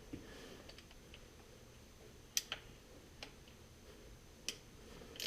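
Faint, scattered clicks of a hand tool against metal, about five over a few seconds, as a wrench is set on the outboard's valve cover bolts.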